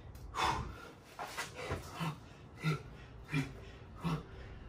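A man breathing hard from exertion: quick, heavy, partly voiced breaths, one roughly every 0.7 seconds.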